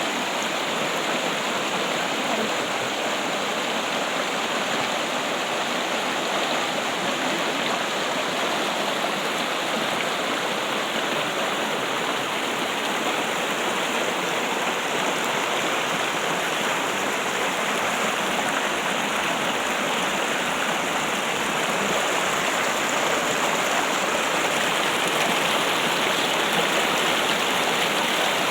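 Water trickling and splashing in a steady, continuous stream, getting a little louder near the end.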